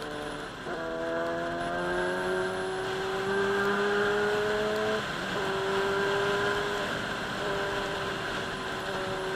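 Sportbike engine under way: the note drops at a gear change, climbs steadily as the bike accelerates through the gear, drops again at the next upshift about five seconds in, then holds a steady cruise.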